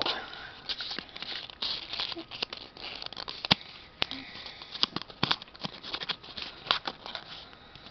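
A sheet of origami paper being folded and creased by hand: irregular rustling and crinkling, with sharp little clicks and taps.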